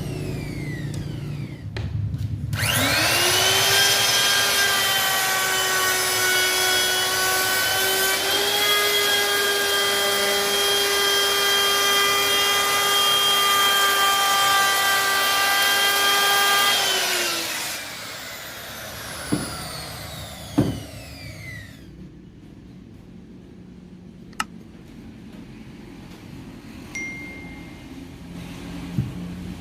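Electric wood router (NRT Pro 3601 HD) switched on, spinning up quickly to a steady high whine that lasts about fourteen seconds, then switched off and winding down with falling pitch. A few sharp clicks follow in the quiet.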